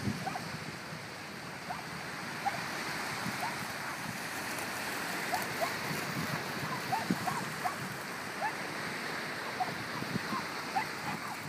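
Steady hiss of surf and lapping water at the shoreline, with light splashing as a corgi runs through shallow water. Scattered short rising chirps sound throughout.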